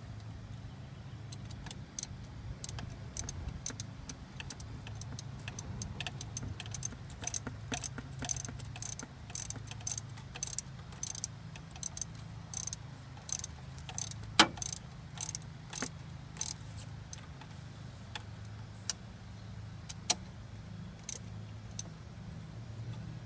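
Hand ratchet wrench clicking in quick runs as a fastener is turned on a Mazda Miata's engine, with two sharper metallic knocks, one past the middle and one near the end. A steady low hum runs underneath.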